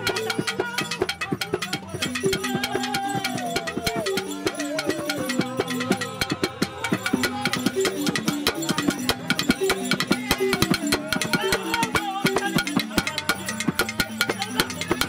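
Two Dagara gyils, wooden-keyed xylophones, playing bine funeral music: a rapid stream of struck notes on repeating patterns. A kuor calabash drum beats along.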